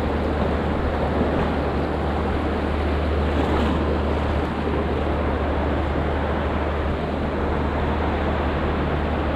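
Steady rush of flowing river water, an even unbroken noise with a low rumble underneath.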